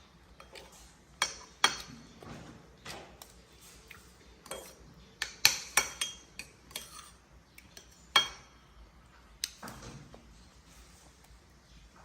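Spoon and dish clinking and tapping in irregular light strokes, typical of food being stirred or scooped for feeding; the sharpest clinks come about five and a half and eight seconds in.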